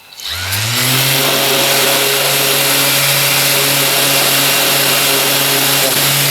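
Mirka sander spinning up about a quarter second in, then running at a steady pitch over a hiss as it sands a small workpiece held by a vacuum clamp, and winding down at the end.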